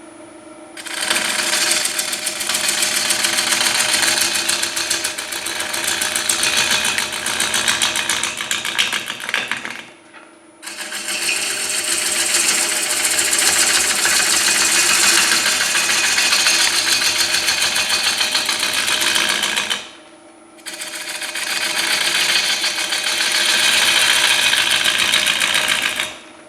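Bowl gouge roughing the outside of a wet, out-of-round 19-inch hard maple bowl blank spinning on a cast-iron wood lathe. There are three long cuts of rough cutting noise with a rapid ticking as the tool meets the uneven, not-yet-round surface, and two brief pauses where only the lathe's steady motor hum remains.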